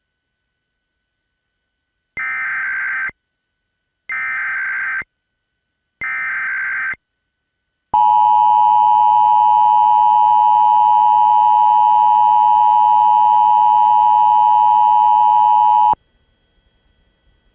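Emergency Alert System tones: three short bursts of SAME header data, each about a second long and two seconds apart, then the two-tone attention signal, a loud steady tone held for about eight seconds that cuts off abruptly. Together they open a required monthly test of the Emergency Alert System.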